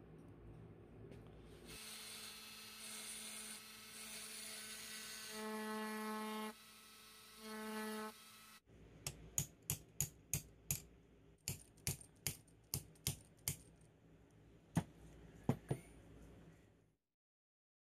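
Handheld rotary tool with a small abrasive point buffing a small metal screw part: a steady high whine with hiss, and a stronger pitched tone that comes in twice as the bit bears on the part. The tool stops just past halfway, and a run of about a dozen sharp clicks follows, with a few more near the end, as the part is handled in a bench vise.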